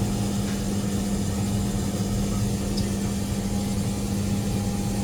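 Boat motor idling with a steady hum.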